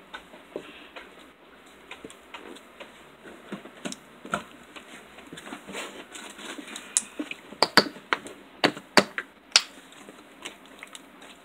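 Homemade marshmallow slime squished and kneaded by hand, giving a run of small irregular clicks and pops. They grow louder and more frequent about two thirds of the way in, with several sharp pops near the end.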